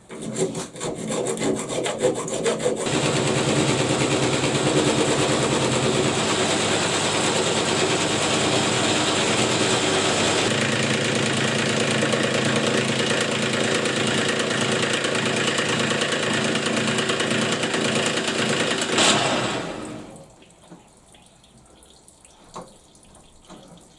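Metal lathe running with a cutting tool facing off the soft jaws held in its chuck: a steady loud cutting noise over the motor hum, which winds down about twenty seconds in.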